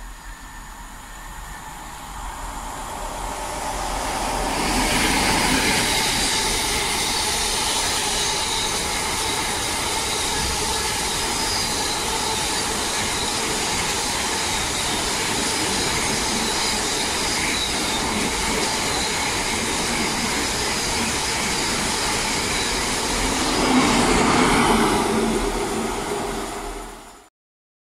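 Freight train of two Class 60 diesel locomotives, top and tail, with loaded biomass hopper wagons, passing close by at speed. The sound builds over the first few seconds as the leading locomotive comes past. A long steady rumble of wagon wheels on the rails follows. The rear locomotive gives a louder swell near the end, and the sound cuts off abruptly.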